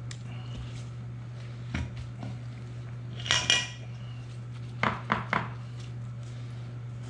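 Metal utensils clinking against dishes: a knock about two seconds in, a louder ringing clatter a little after three seconds, then three quick clinks near five seconds, over a steady low hum.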